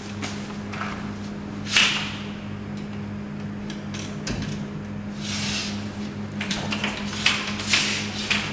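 People handling and passing through a hotel room door: scattered clicks, knocks and rustles over a steady low hum, the loudest a sharp noise just under two seconds in.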